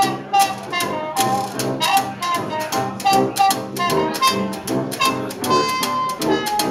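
Small trad-jazz band playing live: a trumpet melody over tuba bass and piano, with a washboard and cymbal keeping a steady beat. A brass note is held for about a second near the end.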